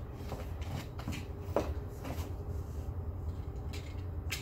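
Cardboard shipping box being handled and its packing tape cut open with a small hand cutter: rustling and scraping of cardboard and tape, with a few sharp clicks, the loudest about a second and a half in.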